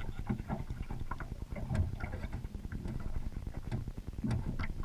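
Steady low rumble of a small fishing boat on open water, with a few scattered light knocks and clicks.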